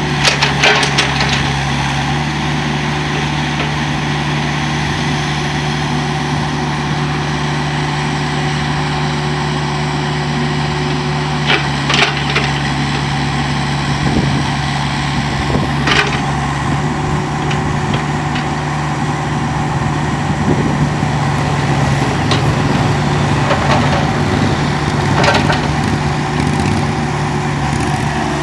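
Caterpillar 304.5 mini excavator's diesel engine running steadily while the boom and bucket are worked, with a few short sharp knocks spread through.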